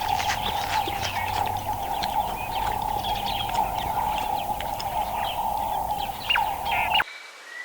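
Many short bird chirps over a steady droning tone, all cutting off abruptly about seven seconds in.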